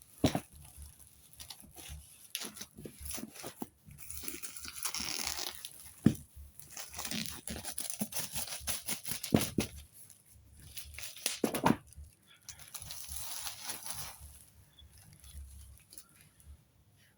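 Calendar wrapping being torn open and crinkled by hand, in several long crackling stretches broken by sharp clicks and knocks of handling.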